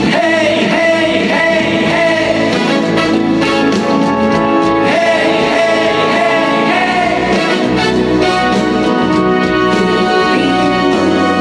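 Instrumental interlude of a Korean trot song: band accompaniment with a wavering melodic lead line over sustained chords, with no lead vocal.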